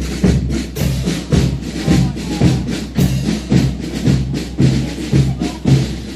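Marching music with a steady drum beat, about two strokes a second.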